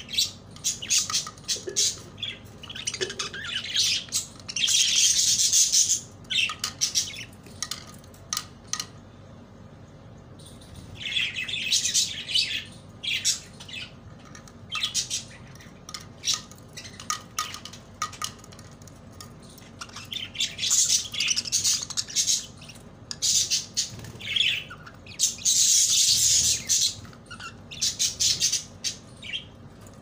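Budgerigars chattering and squawking in about four bursts, with many quick clicks between them from beaks pecking at soaked corn in a plastic dish.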